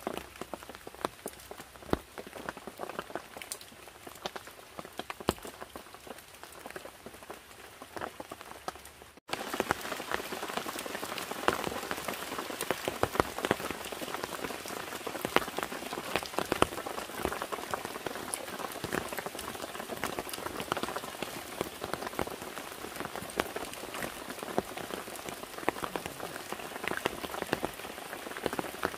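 Steady rain falling, a dense patter of small drops. It turns suddenly louder about nine seconds in and stays that way.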